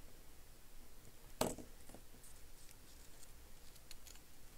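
Faint scratching and ticks of a pen writing on a small slip of paper, with one sharper tap about a second and a half in.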